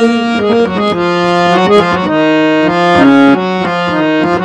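Hand-pumped harmonium playing an instrumental interlude between sung lines: a melodic run of short notes that step up and down.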